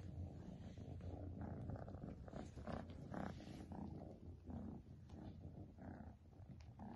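Domestic cat purring, faint and steady with a rhythmic pulse.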